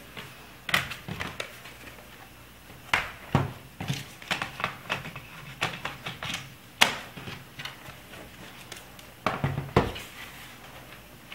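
Scattered plastic clicks and knocks as a Lenovo ThinkPad T430 laptop is handled on a table, turned over and its battery pushed into the battery bay, with a quick cluster of knocks near the end as it is turned back.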